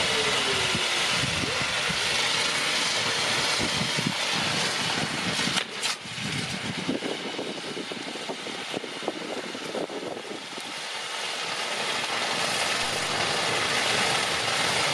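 Ground fireworks fountains spraying sparks with a steady hiss, crackling throughout, and a sharper crack about six seconds in.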